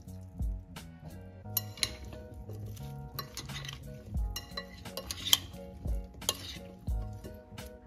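Metal spoon scraping and clinking against a glass bowl as a salad is tossed, in a run of irregular clinks and scrapes starting about a second and a half in. A calm hip-hop beat plays underneath.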